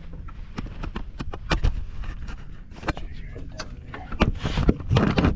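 Handling noise from the camera being picked up and moved around on a fiberglass boat: a string of sharp knocks, clicks and bumps, with a louder rustling scrape near the end.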